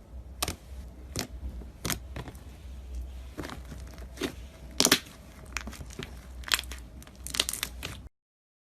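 Sharp crisp crackles and crunches, roughly one every half second and coming thicker near the end, as a crunchy ASMR material is pressed and crushed by hand. The sound cuts off suddenly about eight seconds in.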